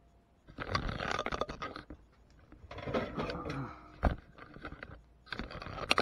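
Handling noise: three bursts of scraping and rustling, with a single sharp click about four seconds in.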